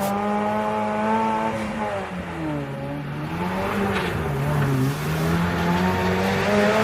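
A 4x4 off-road vehicle's engine running under load, its pitch rising and falling as the revs change.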